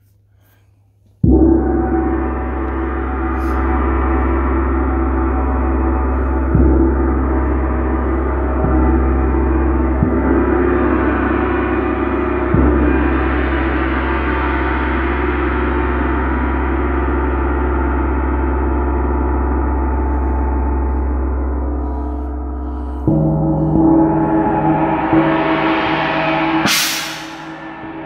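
Gongs struck with a soft mallet. A strike about a second in sets off a long ringing wash of many tones, kept going by several light further strokes. A fresh strike a few seconds from the end adds new tones, followed by one sharp, bright hit just before the end.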